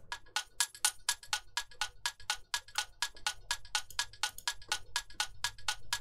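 Electronic clock tick-tock loop made from a sampled percussion hit, playing through a low-pass filter: short, lightly pitched ticks at about four a second, alternating between two pitches like a ticking clock.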